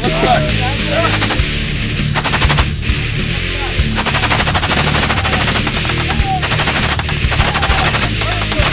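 Belt-fed machine gun firing several rapid bursts from the hip, the longest lasting about two seconds midway, with heavy metal music underneath.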